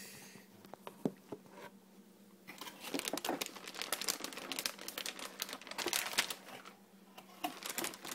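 Plastic packaging crinkling and crackling as it is handled: a few clicks at first, then a dense run of crackles from a couple of seconds in that thins out near the end, over a faint steady hum.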